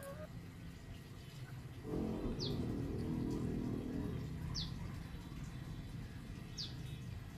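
A bird repeating a short, high, falling whistle three times, about two seconds apart. A low drone swells about two seconds in, is the loudest sound for a couple of seconds, then fades.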